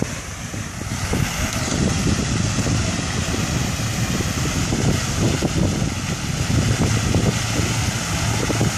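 Wind rumbling on the microphone over a steady rush of splashing water from a plaza of fountain jets.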